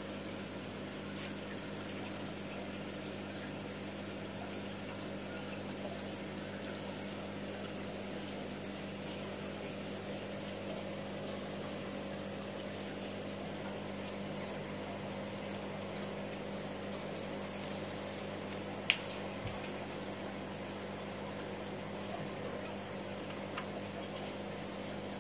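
Steady running-water noise of aquarium filtration and aeration, with bubbling over a low, even hum. A single sharp click about nineteen seconds in.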